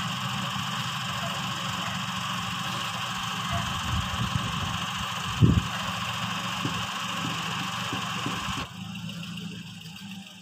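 Engine idling steadily, with one loud knock about halfway through. The sound drops off sharply a little before the end and fades out.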